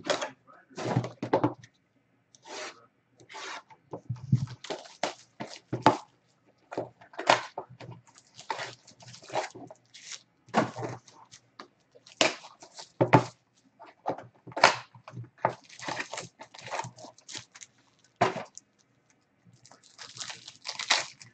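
Trading card packs and their box being handled: irregular crinkles of the pack wrappers, with taps and knocks. Near the end comes a denser rustle as a pack wrapper is torn open.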